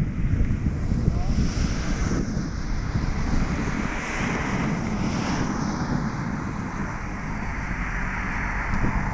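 Wind rushing over the microphone of a camera mounted on the outside of a moving car, over steady road and tyre noise from the car driving along.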